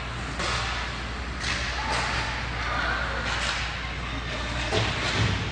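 Basketball game in a large, echoing gym: irregular thuds of the ball bouncing and feet on the court, about one a second, with voices in the background.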